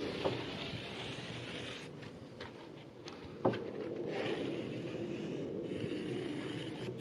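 Faint scraping and handling noise from work on plywood, with two light knocks, one just after the start and one about three and a half seconds in.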